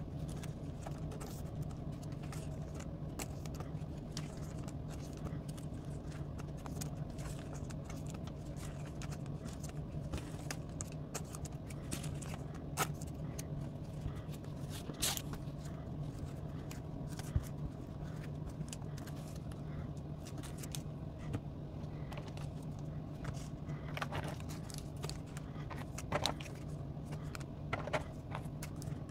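Pokémon trading cards being slid into plastic sleeves and foil booster packs laid out on a playmat: scattered soft rustles and crinkles with a few sharper ticks, over a steady low hum.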